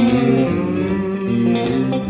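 Background music led by guitar, with held plucked notes and chord changes about every half second.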